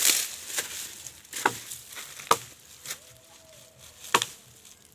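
Sharp cracks and knocks of dry wood, five at uneven intervals, amid rustling of dry brush.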